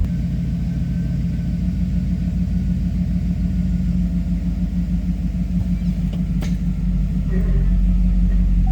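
2008 Chevrolet Tahoe's V8 engine idling as a steady low hum, which swells slightly near the end. A single sharp click comes about six and a half seconds in.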